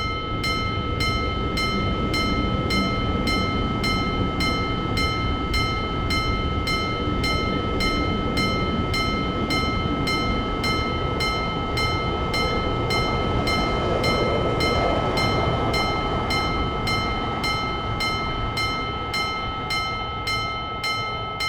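Japanese level-crossing warning bell ringing steadily about twice a second, while an electric train runs past with a continuous rumble.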